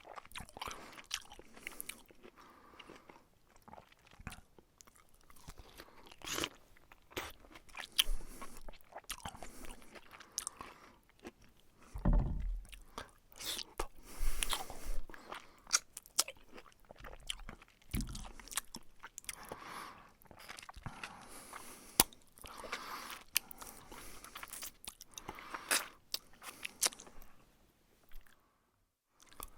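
Close-up eating sounds: crunchy bites and chewing, coming in irregular crackly bursts, with one heavier bite about twelve seconds in. The sound cuts out briefly near the end.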